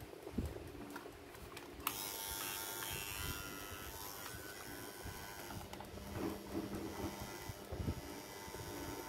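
A small electric motor starts suddenly about two seconds in and runs with a steady whir, with a few light knocks and handling sounds.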